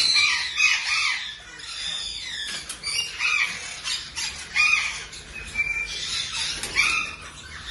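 Many caged birds chirping and squawking together, with short loud calls every second or so over a steady background of chatter.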